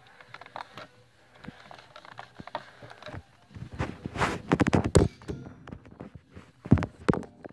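Knocks, taps and rattling handling noise from a phone being moved around near a metal shopping cart. The knocks are scattered at first, then come in a loud cluster about four to five seconds in, with one more loud thump near the end.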